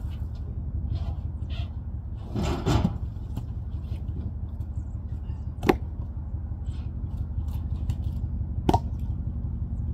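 Cut firewood rounds being shifted and tossed off a trailer: a scraping shuffle about two and a half seconds in, then two sharp wooden knocks, near six and nine seconds, as logs land on the pile. A steady low rumble sits under it all.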